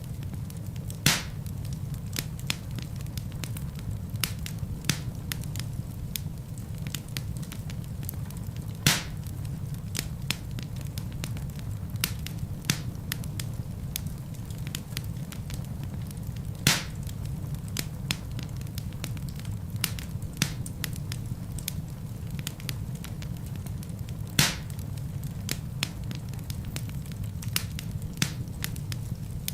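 Wood fire burning in a fireplace, crackling with frequent small snaps and four louder pops spaced several seconds apart, over a steady low rumble.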